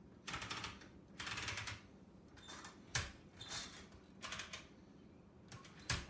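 Sheet of paper being fed into a 1900 Densmore No. 4 typewriter and wound around the platen: several short rustling, sliding sounds, with a sharp click about three seconds in and another near the end.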